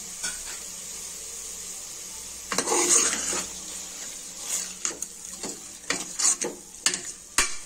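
Metal ladle scraping and clattering against an aluminium pressure cooker pan as mutton and ground spices are stirred, starting about two and a half seconds in, over a faint steady sizzle of frying.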